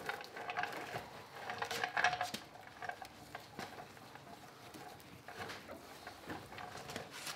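Faint, scattered light taps and rubbing of a damp microfiber rag being worked in and around the edge of a car's wheel well.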